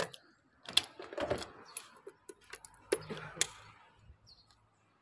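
Metal clicks and clacks of a motorcycle's fuel-tank cap being shut and locked with its key, about half a dozen sharp clicks over the first three and a half seconds with handling rustle between them.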